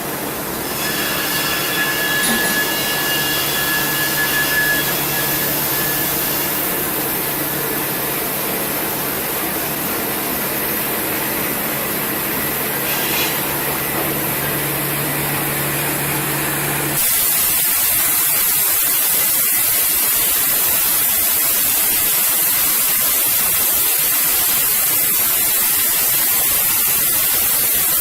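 Steady machinery noise with a few steady tones, which cuts off abruptly about seventeen seconds in and gives way to an even, steady hiss.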